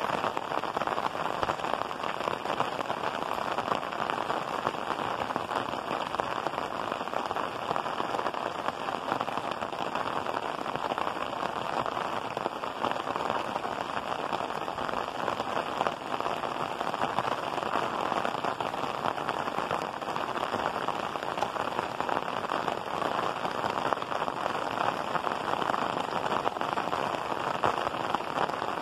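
Heavy rain falling steadily on clay-tile roofs and yards: an even, unbroken hiss.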